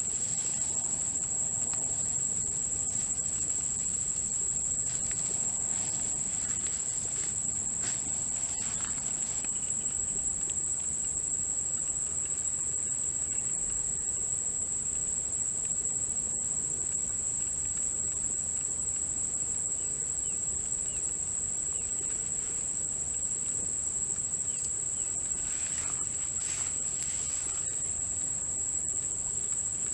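A chorus of insects trilling steadily in one unbroken high-pitched tone, with a few faint rustles and clicks now and then.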